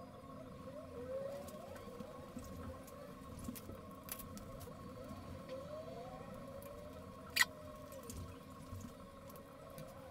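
Soft background music: a sustained drone with slow gliding notes. Light scattered clicks run through it, with one sharp click about seven seconds in.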